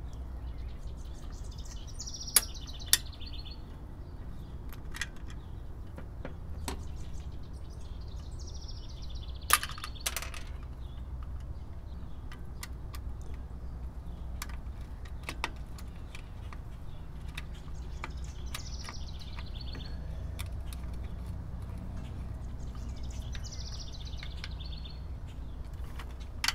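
Small birds chirping in four short spells over a steady low background rumble. A few sharp clicks and taps come through, the loudest about two seconds in and again near ten seconds, from wire and screw terminals being handled in a metal electrical disconnect box.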